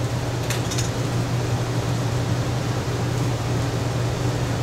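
Steady low hum with an even hiss over it, like a fan or ventilation running, with a few faint ticks about half a second in.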